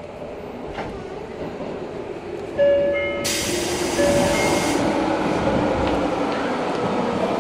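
Interior running sound of an Eidan 03 series subway car: rail noise with an electric motor whine falling in pitch as the train slows. About two and a half seconds in, a sudden louder tone with a hiss cuts in, and a shorter tone sounds again about a second later.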